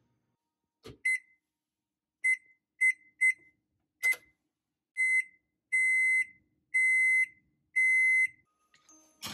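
Oven control panel beeping as its buttons are pressed: about five short beeps, then a slightly longer one, and three long beeps about a second apart near the end. A single knock comes just before the first beep.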